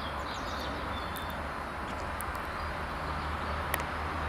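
Outdoor background noise with a low hum, and faint birds chirping in the first second or so. A single sharp click comes near the end.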